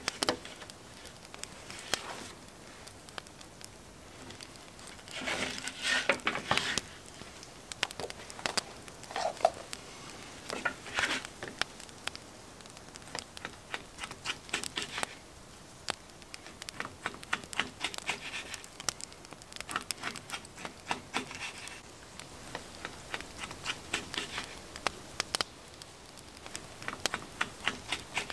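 A linen cloth rustling as it is folded back from a wooden cutting board, then a knife slicing food on the board: bouts of quick light knocks and scrapes as the blade goes through and taps the wood.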